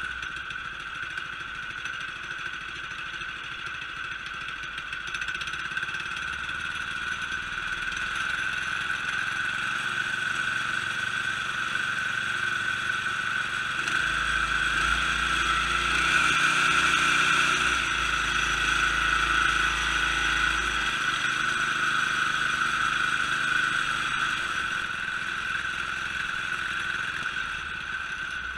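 Harbor Freight Predator 212 single-cylinder engine, fitted with a Series 30 torque converter, running. It grows louder about halfway through, stays up for several seconds, then settles back to a steady run near the end.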